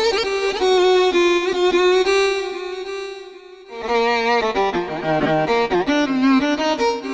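Korg Pa-series arranger keyboard playing a violin sound: a melody with vibrato that fades out a little before the middle, then resumes with a line of lower, descending notes.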